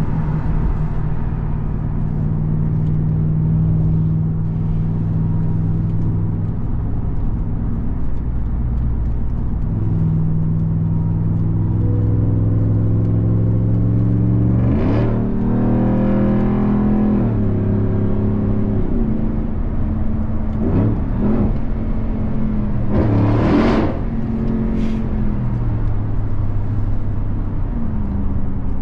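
Supercharged 6.2-litre Hemi V8 of a 2021 Ram 1500 TRX pickup running steadily while driving. About halfway through it pulls up in pitch under acceleration and then drops back, with another short, sharp burst of throttle near the end.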